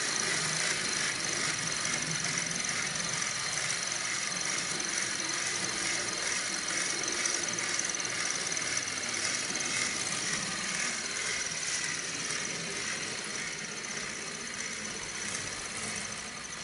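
Small electric motor and gearbox of a 3D-printed scale 0 model diesel locomotive running steadily along the track, a continuous high whine with wheels rolling on the rails. It grows a little quieter toward the end.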